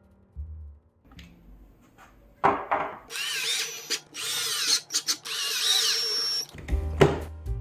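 Cordless drill-driver driving a screw through a plastic corner piece into birch plywood. The motor runs in a few short bursts, its whine sliding up and down with the trigger. A sharp knock comes near the end.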